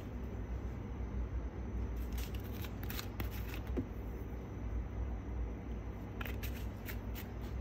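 Small pepper shaker shaken over a plate of noodles: quick clusters of light rattling taps about two to four seconds in and again near the end, over a steady low hum.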